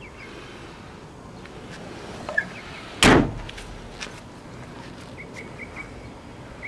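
The trunk lid of a 1979 Camaro Z/28 is slammed shut about three seconds in: one loud thud with a short ring-out, after a small click. Faint, evenly repeated chirps come in near the end.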